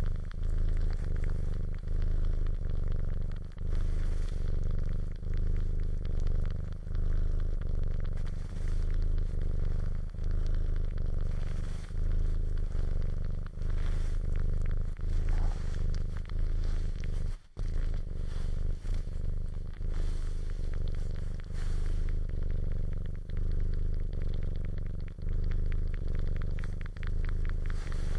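A cat purring close to the microphone: a steady low rumble that swells and eases with each breath in and out, about every second and a half. It breaks off for a moment about two-thirds of the way through.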